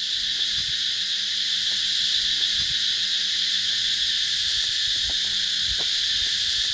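Cicadas in the trees calling in one steady, unbroken, high-pitched chorus, absolutely deafening.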